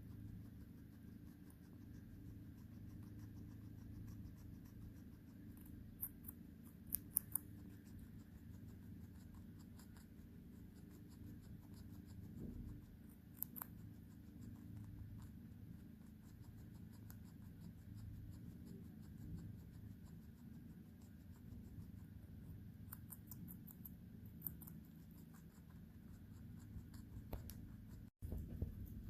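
Guinea pig chewing crunchy raw vegetables: a run of quick, small crunching clicks, with a few louder crunches now and then, over a faint low room hum.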